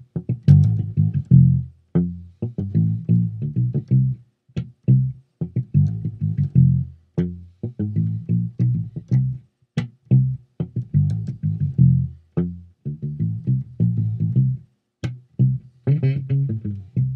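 Electric P/J bass with flatwound strings, played on its P-bass pickup through a Peavey Basic 112 combo amp and picked up by a laptop microphone. It plays a deep line of short, separated notes in phrases with brief gaps between them.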